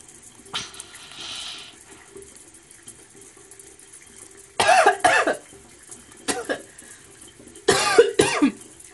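A woman coughing and gagging in two loud bouts about three seconds apart, choking on water from an oral irrigator jet aimed at her tonsils. A short hiss comes before them, about half a second in.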